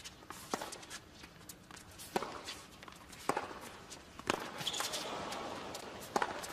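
Tennis rally: a ball struck back and forth with racquets, five sharp pops about one to two seconds apart, with faint shoe scuffs on the hard court between them.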